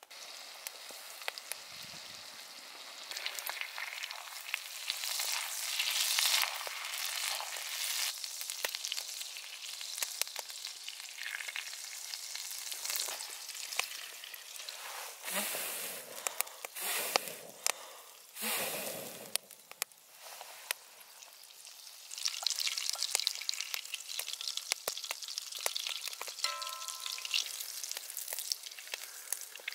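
Butter frying in a hot pan over a wood fire: a steady crackling sizzle that rises and falls in loudness, with a few short louder surges about halfway through.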